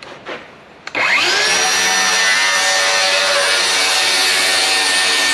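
DeWalt FlexVolt 7-1/4-inch cordless circular saw with a Diablo demo blade starting about a second in, spinning up fast and then running at a steady high whine as it bevel-rips a spruce-pine-fir 2x12. The pitch holds without bogging down: the saw has plenty of power for this cut.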